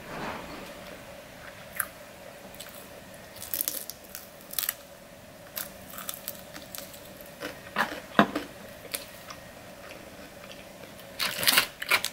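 Close-up crunching and chewing of extra-crispy fried chicken wings: irregular crisp crackles as the coating is bitten and chewed, with a quick flurry of crackles near the end.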